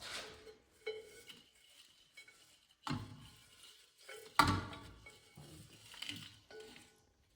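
Metal kitchenware clattering: about five knocks and clinks with short ringing, the loudest about four and a half seconds in, as the boiled pine needles are emptied out to be thrown away.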